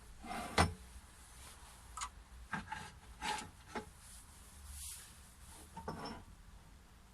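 Short metal knocks and scraping rubs as the tailstock and centres of a Holzmann D460FXL wood lathe are slid and set to check the centres line up. There are about half a dozen knocks, the sharpest about half a second in, and the motor is not running.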